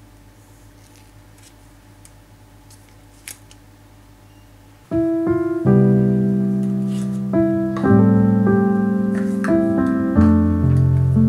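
Quiet room tone with a low steady hum and a few small clicks, then background piano music starts abruptly about five seconds in, a melody of separate struck notes over low held chords.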